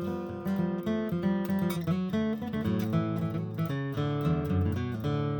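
Background music: a plucked and strummed acoustic guitar playing a tune, which ends with a held, ringing chord near the end.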